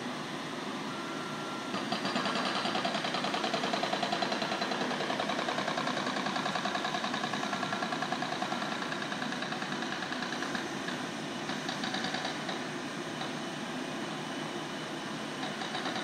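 Jackhammer hammering with rapid, even blows. It gets louder about two seconds in and eases somewhat after about eleven seconds.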